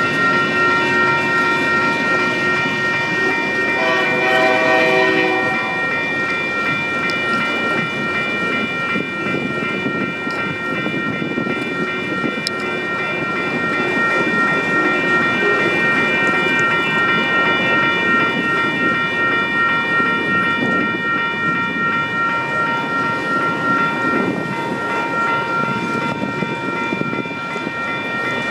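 Freight train of empty autorack cars rolling past, with the rumble and clickety-clack of steel wheels on rail and a steady high-pitched squeal of several tones from the wheels throughout. About four seconds in, a louder chord of tones sounds for roughly a second and a half.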